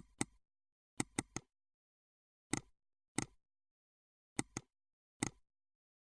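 Short, sharp clicks from computer controls being worked, about nine in all. Some come in quick pairs and one in a run of three, with dead silence between.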